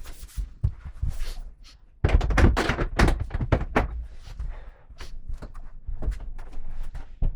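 Irregular knocks and thuds of wooden wardrobe panels being handled and fitted, busiest and loudest from about two to four seconds in.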